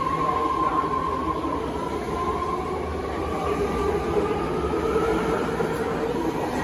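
BART Fleet of the Future electric train pulling out of an underground station and accelerating past: steady rumble of wheels on rail with a motor whine that dips slightly and then climbs in pitch as it gathers speed.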